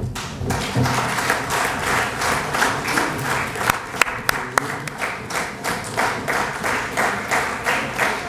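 Audience applauding in a hall, a dense patter of many hands clapping that settles into a steady rhythmic clap about halfway through.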